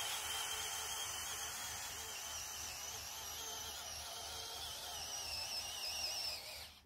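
Electric motors of a remote-controlled Lego Technic John Deere 8R tractor model whining with a high, wavering pitch as it drives, slowly getting quieter, then cutting off suddenly near the end.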